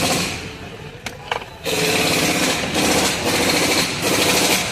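Impact wrench hammering on bolts in repeated bursts of about a second each, with short pauses between them.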